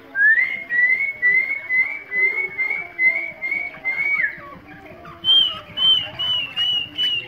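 A quick run of about ten short, clean whistled notes, each rising slightly, about two and a half a second. After a short pause comes a second run of higher whistled notes, each falling slightly, about two a second.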